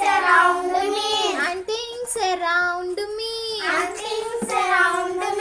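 Group of children singing a rhyme together in unison, holding notes of about a second each.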